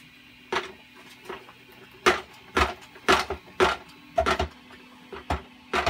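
3D-printed plastic robot leg parts knocking and clicking as they are pushed and worked into their slot on the hip, about ten irregular knocks, thickest in the middle.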